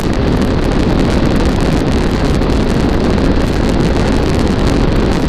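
Steady, loud wind rush over the microphone from a Honda CB500X motorcycle running flat out at close to 100 mph.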